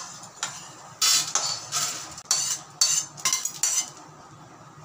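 A slotted metal spatula scrapes freshly roasted dal out of a metal kadai into a steel plate. There are about six quick scrapes, with the dry lentils clattering against the metal.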